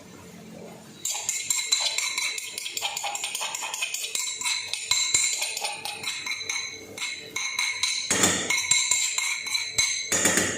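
Onion and garlic frying in oil in a pan: a dense crackling sizzle that starts suddenly about a second in. Two louder rasping bursts come near the end.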